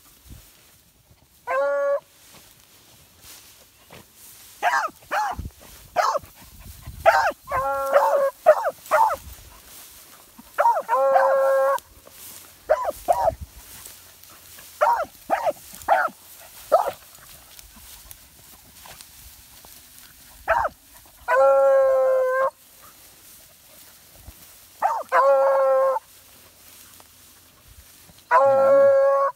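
A hound giving mouth on a track. It gives a mix of short chopped barks and long drawn-out bawls of about a second each, in spells with short gaps between.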